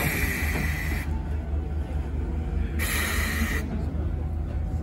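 Type 9600 steam locomotive No. 49671, driven by compressed air rather than steam, slowly exhausting in hissing puffs, each about a second long and roughly two and a half seconds apart, over a steady low rumble.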